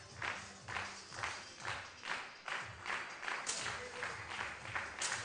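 Spectators clapping together in a steady rhythm, about two claps a second.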